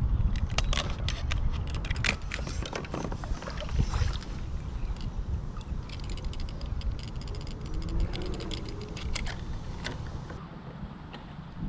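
Wind buffeting the microphone, with a string of small clicks and knocks from gear being handled in a kayak. The clicks are thickest in the first few seconds and come again a little past the middle.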